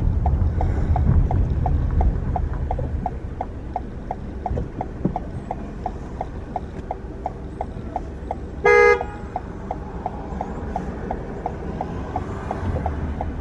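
A car's turn signal ticking steadily, about three ticks a second, over road rumble inside the car. About nine seconds in, a car horn gives one short, loud toot, a warning at a near miss in traffic.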